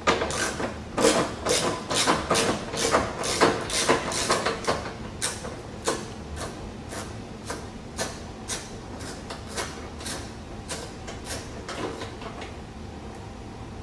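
Hand socket ratchet on a long extension clicking stroke after stroke as a 10 mm nut is backed off. The strokes come quick and loud for the first few seconds, then slow down and grow fainter.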